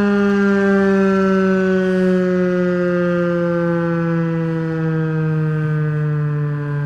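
Federal Signal 2001-SRN outdoor warning siren winding down: its single wailing tone slides slowly and steadily lower and fades a little as the rotor coasts down.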